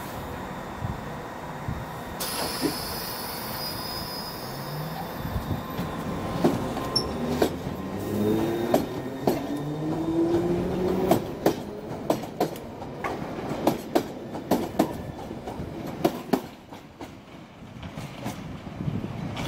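London Underground D78 stock train pulling out of the station. About two seconds in, a high wheel squeal sounds for a few seconds. Then the traction motors whine, rising in pitch as the train accelerates, and the wheels click over the rail joints before the train fades away.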